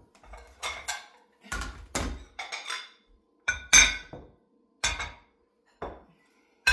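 Dishes and kitchen utensils being handled and put away: about ten irregular clinks and knocks, the loudest a little under four seconds in.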